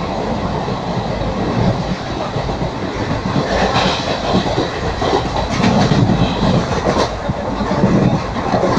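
Train running along the track: a steady rumble with rattling and wheel clatter over the rails, and a few sharp clicks in the second half.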